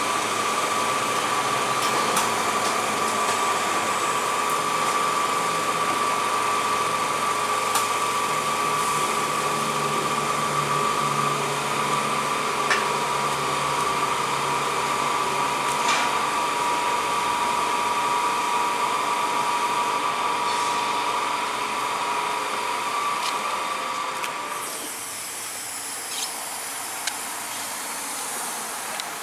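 WashTec Combiwash car wash dryer blowers running with a steady, loud whine. Near the end it drops to a quieter hiss, with a few faint clicks.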